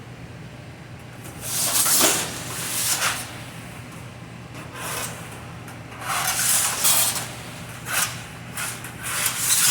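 A series of short scraping and rubbing strokes from hand work on material, in uneven bursts with a pause in the middle, over a steady low hum.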